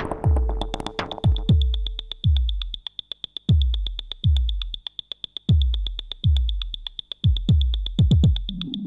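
Electronic music: deep drum-machine kicks that drop in pitch, over a fast run of thin clicking ticks and a steady high synthesizer tone.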